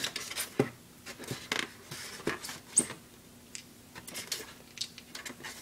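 Hands pulling AA batteries out of the packaging in a cardboard box with a foam insert: scattered light clicks, scrapes and rustles, a few at a time.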